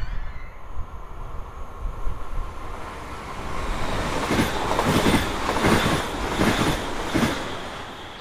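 An ABTR ER1 electric multiple-unit train passing along the track. A swelling rumble turns, about four seconds in, into a run of five wheel clatters over the rail joints, roughly two-thirds of a second apart, then fades.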